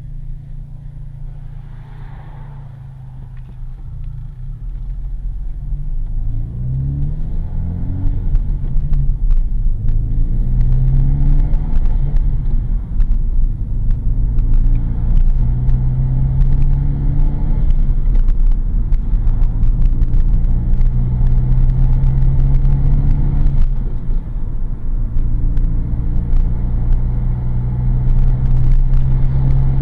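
2013 Hyundai Veloster Turbo's 1.6-litre turbocharged four-cylinder through a Solo V-Mach cat-back exhaust with the resonator in place, heard inside the closed cabin. It idles, then about five seconds in pulls away and accelerates through several gears, the pitch rising with each one, before settling to a steady cruise.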